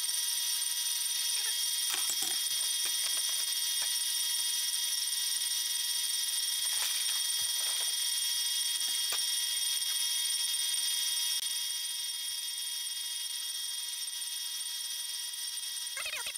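Old 14.5-inch South Bend lathe running, turning a cast-iron brake disc as the tool takes a skim cut across its face. It makes a steady high-pitched whine and hum, with a short squeal from the cut starting near the end.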